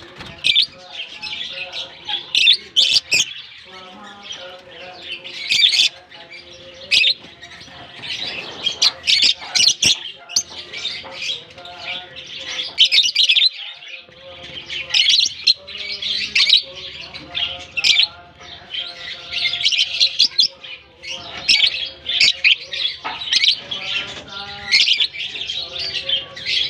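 A colony of lovebirds chirping, with many high-pitched calls overlapping without a break.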